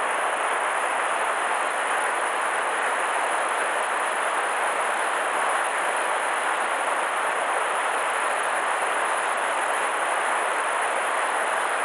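Steady rushing of a swollen river's fast current, an even hiss with no breaks.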